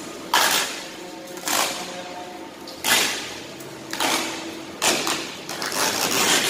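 Protective plastic film being peeled and crumpled off a new car's hood: about five separate crackling swishes, each fading within half a second.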